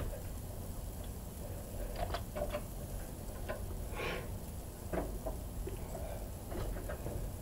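Scattered short metallic clicks and light taps of a small wrench and fittings being handled around a Kubota diesel engine's injector lines, over a low steady hum.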